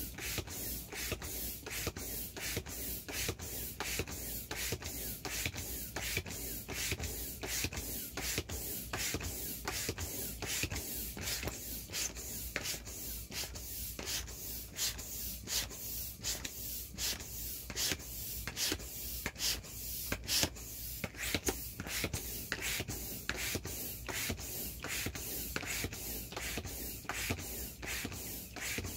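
Air pump pushing air through a hose into the vinyl wheels of an inflatable ATV, a rhythmic whooshing at about two strokes a second as the wheels fill.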